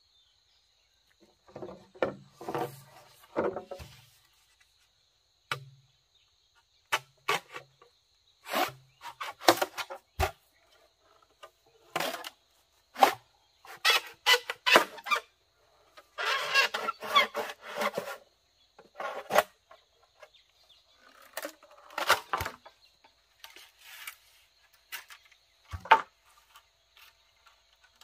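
Irregular knocks, taps and clattering, some in quick runs and one longer scraping stretch, with a faint steady high-pitched tone behind them.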